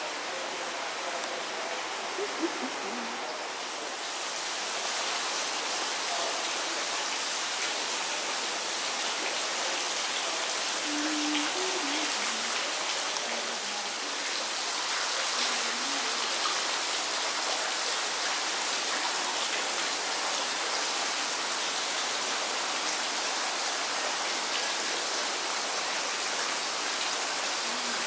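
Steady rushing hiss of running or falling water, a little louder from about four seconds in.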